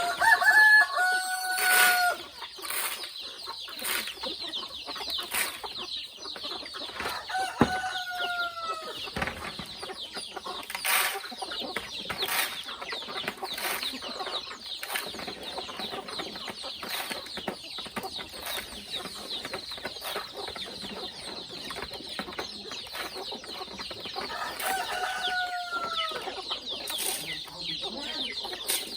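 Free-range chickens clucking, with a rooster crowing three times: near the start, about a quarter of the way in, and near the end. A steady high-pitched buzz runs underneath.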